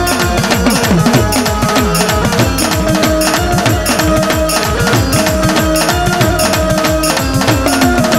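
Live Gujarati dakla devotional music with no singing. Tabla and dak drums keep up a steady, fast beat, with the low drum tones bending downward on each stroke. Manjira cymbals and a sustained benjo (bulbul tarang) melody play over the beat.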